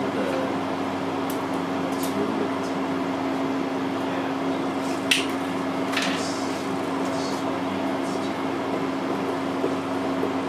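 Steady mechanical hum with a constant low tone, and a few short clicks, the sharpest about five seconds in.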